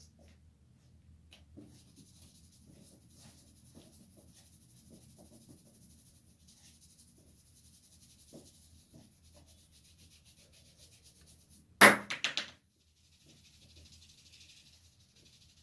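Faint rubbing of hands on hair and scalp during a head massage, then about twelve seconds in a short, loud cluster of sharp smacks lasting under a second.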